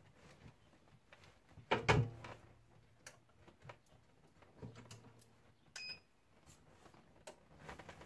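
Clamshell heat press being lowered and clamped shut onto an umbrella, with a loud double clunk about two seconds in. Lighter knocks of handling follow, and a short high beep comes a little before six seconds.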